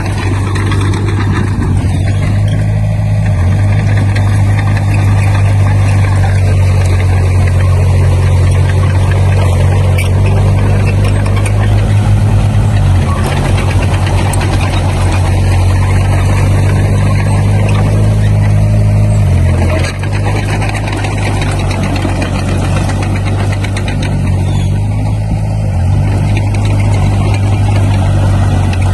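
Diesel engine of a Komatsu D20P bulldozer running steadily at work, its pitch briefly dropping about twenty seconds in.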